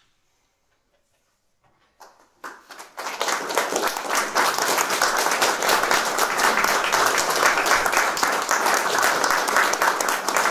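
Near silence for about two seconds, then an audience starts applauding, building within a second to steady, dense clapping.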